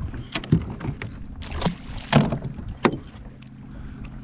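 Bow-mount trolling motor being deployed: a series of clanks and knocks, about five in the first three seconds, as the mount and shaft swing down into the water, over a steady low hum.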